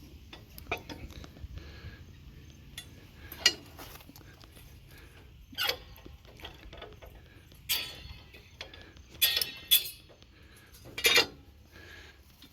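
Steel tractor hitch parts clanking and clinking as they are handled: a string of separate sharp metallic knocks, several with a short ring.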